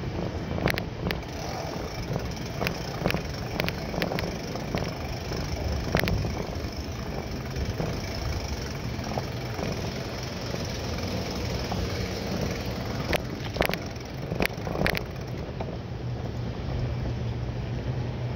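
Bicycle ride heard from a bike-mounted camera: a steady rushing noise over a low rumble, with scattered sharp clicks and knocks, several in quick succession near the start and a cluster about two thirds of the way through.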